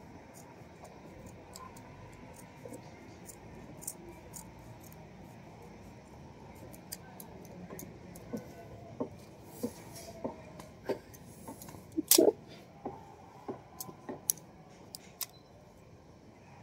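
Scissors cutting through a cotton T-shirt: irregular snips and clicks of the blades closing, few at first, then coming more often and louder in the second half, the loudest about twelve seconds in.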